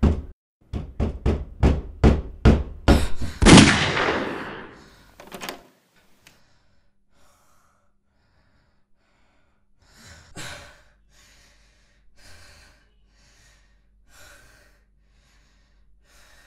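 Fists pounding rapidly on a wooden door, about three blows a second, ending about three and a half seconds in with one louder bang that rings out for over a second. Then only faint gasping breaths.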